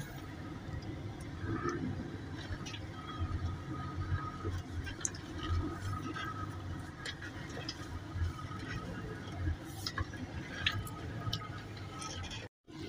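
Low, steady rumble of a vehicle moving slowly on a muddy dirt road, heard from inside the cab, with faint scattered clicks and rattles. The sound cuts out for a moment near the end.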